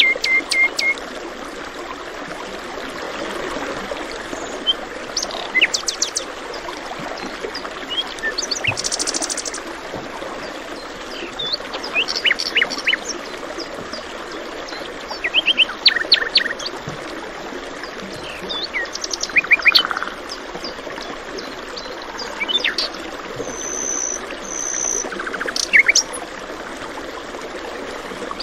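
Several songbirds chirp and trill in short scattered phrases over a steady rush of flowing water. The bird calls come in clusters every few seconds.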